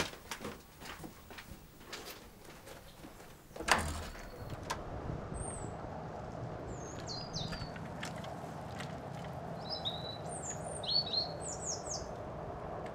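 Sparse soft clicks and knocks, then a sharp thump about four seconds in. After it comes a steady outdoor background noise with small birds chirping in short, quick calls.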